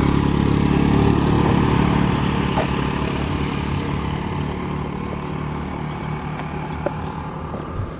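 A small motor scooter passing close by, its engine loudest about a second in and then slowly fading as it rides away.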